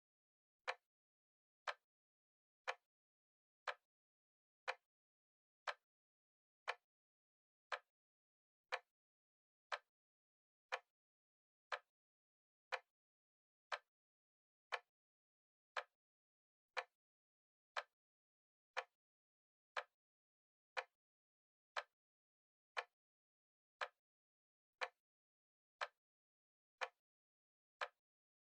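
Timer ticking like a clock, one short sharp tick each second, evenly spaced and steady.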